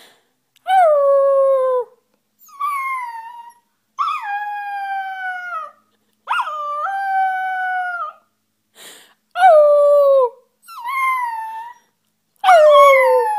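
A merle puppy howling: about seven drawn-out howls with short pauses between, each sliding down in pitch at the start and then holding steady.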